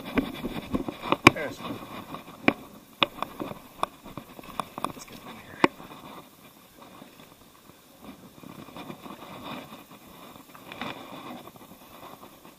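Handling noise while a bass is landed from weedy bank cover: rustling through plants and irregular sharp knocks and clicks, thickest in the first six seconds, then quieter.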